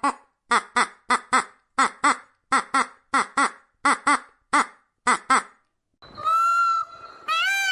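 An animal calling in short pitched calls, mostly in pairs, about one pair every three-quarters of a second. After a brief gap about five and a half seconds in, a longer, higher-pitched call follows, and another begins near the end.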